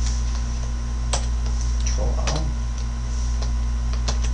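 A few single computer keyboard key presses, spaced roughly a second apart, over a steady low hum.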